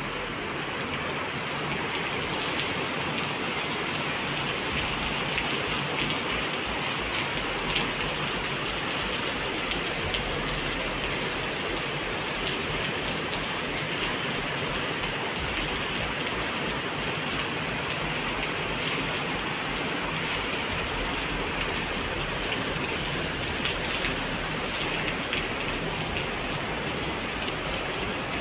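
Heavy rain pouring steadily, an even hiss with no pauses.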